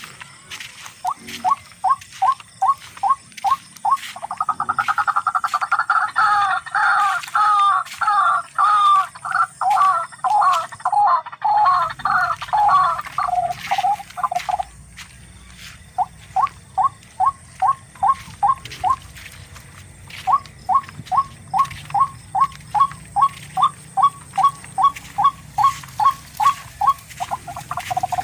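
Barred rail (tikling) calling: a series of evenly spaced harsh notes, about three to four a second, breaking into a faster, denser two-pitched chatter for about ten seconds, pausing briefly, then going back to the spaced notes.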